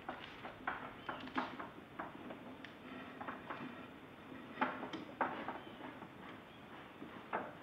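Etching press being cranked by hand: a string of irregular clicks and knocks from its gears and moving bed, two louder knocks about halfway through.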